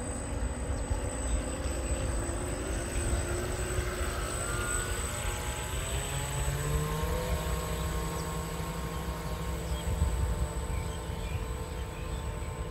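Motors of a 1:40 RC model catamaran ferry whining. The pitch rises about four to seven seconds in as the boat speeds away across the water, then holds a steady tone, over a low rumble.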